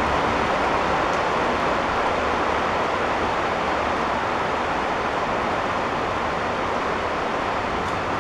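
Heavy rain pouring down during a thunderstorm, a dense, even hiss that holds steady without a break.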